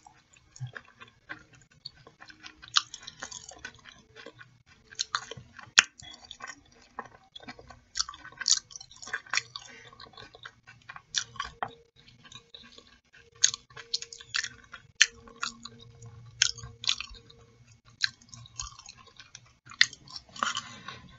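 Close-up chewing and wet mouth smacks of a person eating sauce-coated fried chicken and french fries by hand: many short, irregular clicks and smacks.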